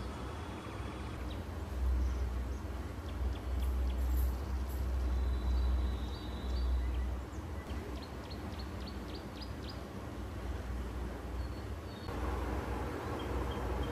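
Small birds chirping in short high notes, including a quick run of chirps about eight seconds in, over a steady low rumble.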